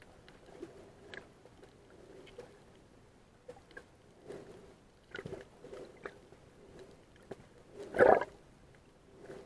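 Underwater sound on a coral reef, picked up by a camera below the surface: faint scattered clicks and crackles over a low steady hum, with one louder burst of rushing noise about eight seconds in.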